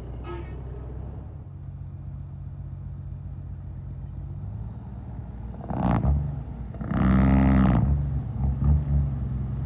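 Heavy truck's diesel engine running at a steady low idle, then two loud bursts, a short one about six seconds in and a longer one about seven seconds in, followed by an uneven, pulsing rumble.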